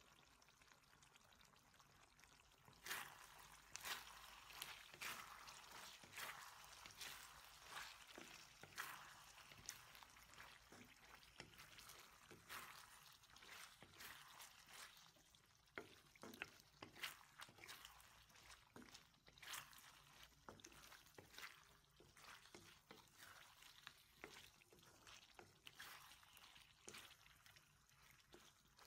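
Faint stirring of pork, green beans and carrots in teriyaki sauce in a wok with a wooden spatula: wet, irregular scraping and knocking against the pan over the sauce bubbling. It starts about three seconds in.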